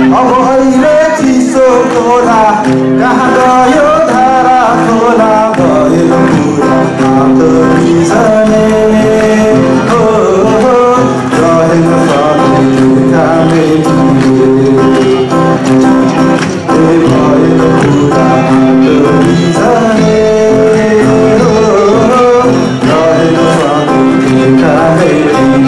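Live song with acoustic guitar accompaniment and a male voice singing over it.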